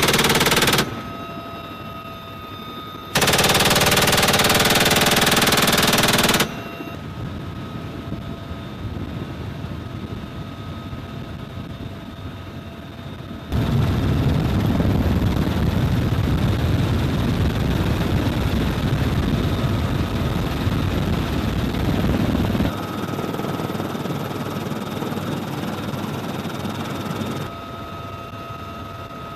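Door-gun fire from a UH-1Y Venom helicopter: a short burst as it opens, then a longer burst of about three seconds. About halfway through comes a louder, deeper continuous rumble lasting about nine seconds. The helicopter's steady turbine whine runs underneath.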